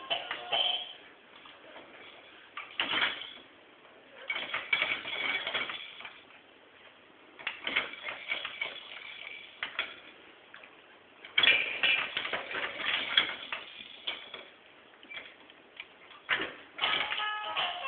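Hanging plastic toys of a baby play gym rattling and clacking in irregular bursts as a baby bats and grabs at them.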